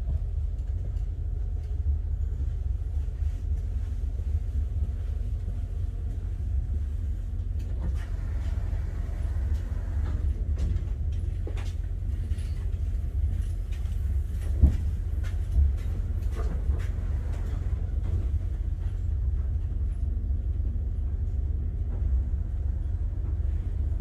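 Steady low rumble of the Haramain electric high-speed train running. A few light clicks and knocks come midway, the loudest a sharp knock just past the middle.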